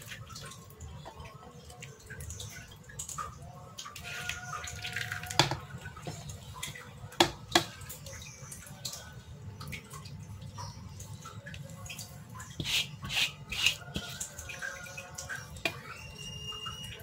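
Stir-fried cabbage and egg slid out of an aluminium wok onto a ceramic plate with a silicone spatula: wet plopping and scraping of the food, with several sharp knocks of the spatula and wok rim. A low steady hum runs underneath.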